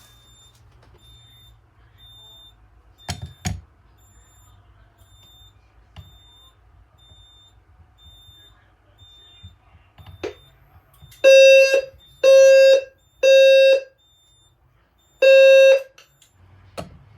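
EST Genesis low-frequency fire alarm sounder blasting a low tone: three half-second blasts about half a second apart, then after a pause one more, as the walk test briefly sets it off. Faint, regular high beeping and a couple of clicks come before it.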